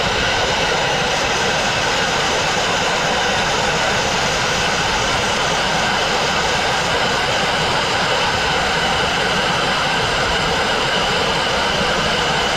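Dustless (wet abrasive) blasting nozzle running continuously: a steady, loud hiss of compressed air, water and crushed-glass media striking the wall as it strips cement-backed masonry paint off brick.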